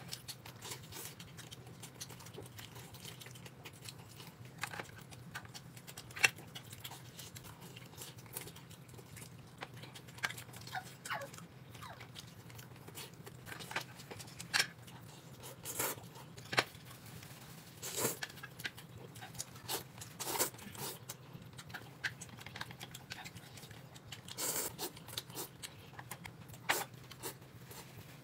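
Sporadic small clicks, taps and rustles of people eating a meal at a table, over a faint steady hum; the sharpest click comes about six seconds in, with more of them bunched in the second half.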